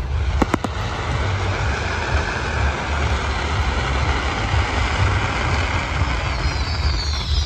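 Fireworks display: a few sharp bangs in the first second, then a steady rushing noise with a deep rumble, and near the end several short falling whistles from the pyrotechnics.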